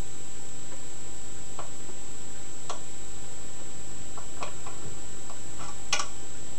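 Irregular light metallic clicks of a pick working the pin tumblers of a five-pin euro cylinder lock under tension, the pins clicking as they are lifted and spring back, with a sharper click about six seconds in.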